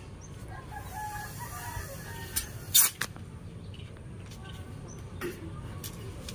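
A rooster crowing faintly for about two seconds, then a few sharp knocks, the loudest a little under three seconds in.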